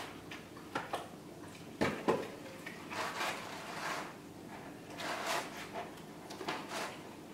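Quiet eating and handling noises from people eating pizza out of a cardboard box: a few soft knocks and clicks in the first two seconds, then short breathy rustles.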